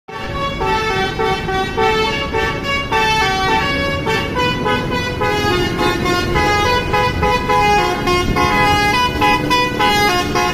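Bus 'telolet' basuri multi-tone horn playing a melody: loud horn notes stepping from pitch to pitch with hardly a break, over a steady low rumble.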